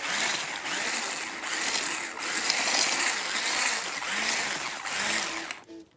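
Electric stick blender with a whisk attachment running as it churns dry bath bomb powder in a metal bowl, a loud steady whirring and gritty rush that cuts off shortly before the end.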